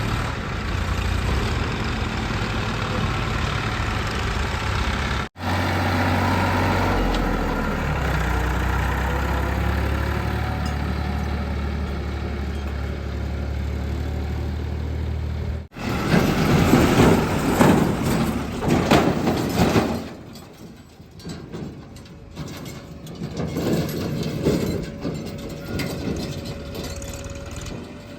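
Diesel engine of heavy earthmoving machinery running, heard across several abrupt cuts. About sixteen seconds in comes a louder, rougher stretch of about four seconds, then the sound drops to a quieter, uneven level.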